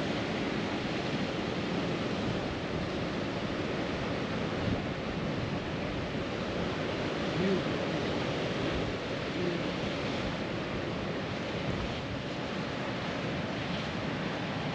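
Steady rushing noise of water below a spillway, with wind on the microphone.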